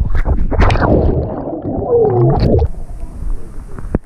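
Muffled, dull sound heard through a submerged action camera in a swimming pool: water rushing and bubbling, with low thumps from swimmers moving. A muffled wavering tone comes about two seconds in.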